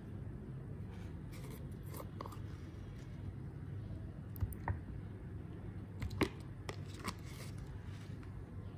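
A few short plastic clicks and taps as a clear plastic slime container is handled and its lid is taken off and put back on, over a steady low hum.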